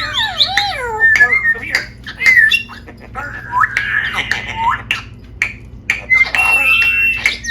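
Pet parrot vocalising in a run of squawks, chatter and whistles, with sliding and warbling pitches, some sharp clicks, and a held whistle near the end.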